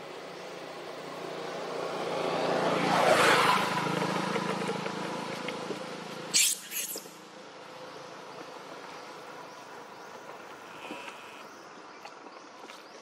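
A motor vehicle passing: its engine noise swells to a peak about three seconds in and fades, its low hum stopping abruptly about six seconds in. Two short high hissy sounds follow right after.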